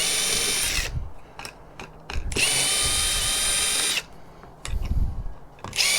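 Power drill/driver spinning out long screws, running in short steady bursts at a constant whine: one ending about a second in, one in the middle lasting under two seconds, and another starting near the end, with small knocks and clatter between.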